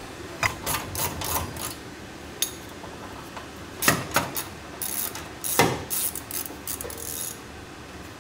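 Irregular metallic clicks and clinks of hand tools and metal parts being handled, with heavier knocks about four and about five and a half seconds in.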